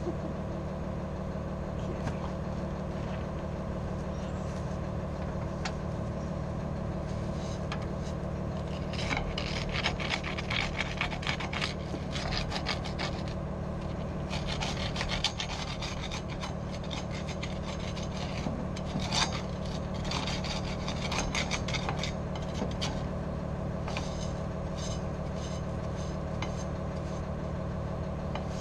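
Stiff hand brush scrubbing the metal foot pad of an RV leveling jack, in runs of quick scratchy strokes that pick up about eight seconds in, over a steady low engine hum.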